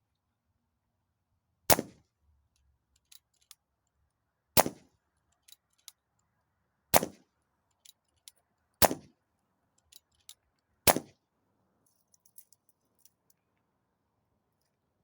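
AEA Challenger Pro .25 PCP air rifle fired five times, roughly two seconds apart, each shot a sharp report with a short ringing tail, with fainter clicks between the shots.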